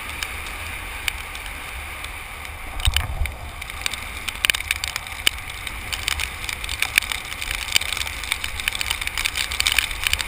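Wind buffeting the microphone of a camera on a fast-moving vehicle, with steady road rumble and frequent sharp clicks and rattles. The rattles grow busier from about four seconds in.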